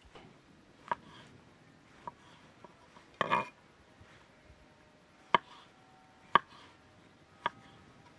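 Kitchen knife slicing green olives on a wooden cutting board: sharp single taps of the blade on the board, roughly one a second, with a short flurry of taps a little after three seconds in.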